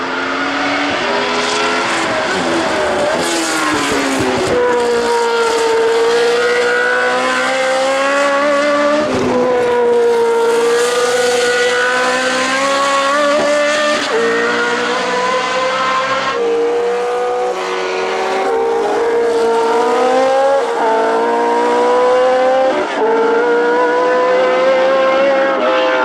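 Ford Cosworth DFV V8 of a 1979 Ligier JS11 Formula One car running at racing speed, its pitch climbing steadily and then dropping sharply at each upshift, several times.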